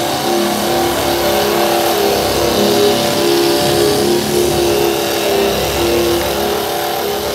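Handheld surface conditioning tool (SCT) running steadily with its drum sanding paint off car body sheet metal: a motor hum under a dense, high abrasive hiss.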